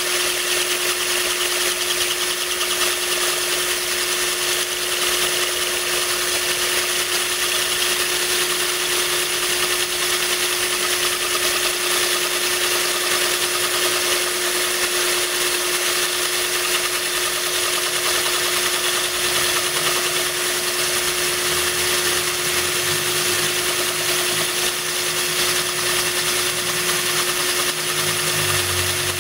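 Electric drill running steadily at one pitch, its bit grinding through the wall of a glass bottle under a stream of cooling water poured from a watering-can rose.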